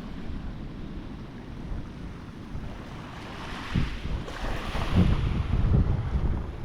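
Wind buffeting the microphone over sea water washing and splashing around a sea kayak. It grows louder, with uneven surges, from about four seconds in.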